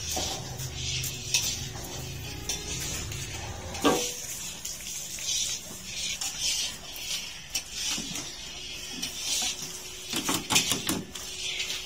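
Clatter of metal dishes and containers, with scattered knocks and a quick run of clanks near the end as a plate knocks about inside a metal tin.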